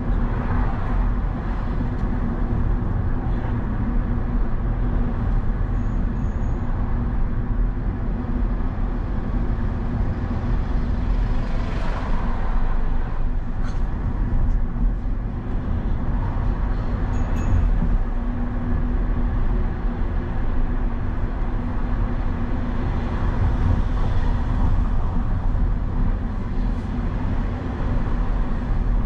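Steady engine and road noise from a vehicle driving through city traffic, with other traffic passing now and then.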